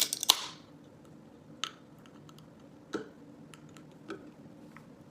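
Soda can of Dr Pepper being cracked open: two sharp pops with a fizzing hiss at the start, then a few faint clicks and taps.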